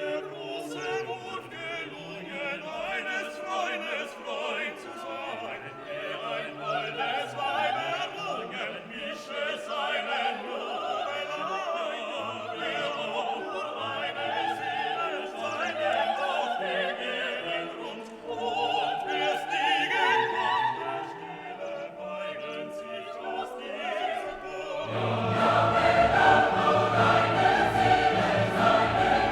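Classical music with singing voices over an orchestra, swelling fuller and louder about 25 seconds in.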